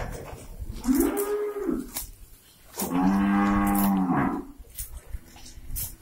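Cows mooing: a shorter, higher moo about a second in, then a longer, lower moo that drops in pitch at its end around three seconds in, and a faint third moo near the end.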